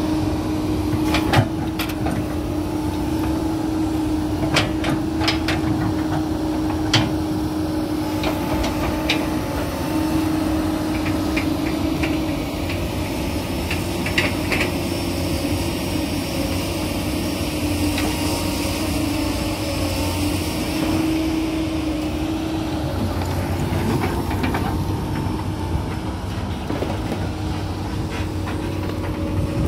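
Komatsu PC200 hydraulic excavator running close by: a steady diesel drone with a held hum and a low rumble beneath, broken by occasional sharp knocks, most of them in the first half.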